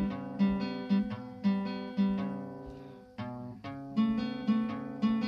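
Acoustic guitar playing a slow blues riff, notes and chords struck roughly twice a second and left to ring, with a longer ringing pause near the middle.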